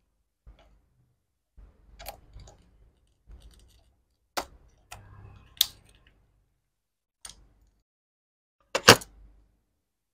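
A V-TEC compass circle cutter turned by hand, cutting out a 30 mm disc. It makes scattered clicks and short scraping strokes as the blade works round the cut, with a sharp double click about nine seconds in.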